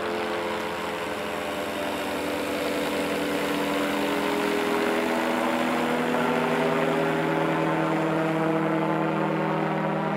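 Light airplane powered by a Yamaha Phazer snowmobile engine driving the propeller through a reduction gearbox, flying overhead: a steady engine and propeller drone that grows a little louder a few seconds in.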